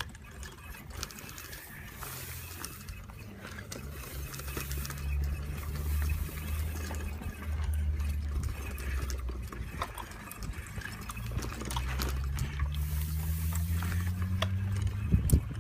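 Bicycle rolling over a bumpy dirt trail, tyres crunching with small clicks and rattles, under a low steady hum that rises in pitch over the last few seconds.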